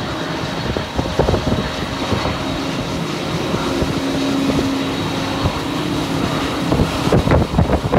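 Convoy of snowplow trucks and towed runway sweepers driving through deep standing water: truck engines running with a steady hum, over the rush of water thrown up by the blades and wheels. Wind gusts on the microphone near the end.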